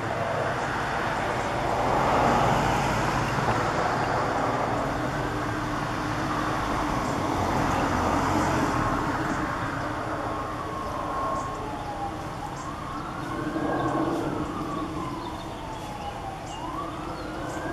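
Emergency vehicle siren wailing, its pitch sweeping slowly up and down several times over a steady background rumble.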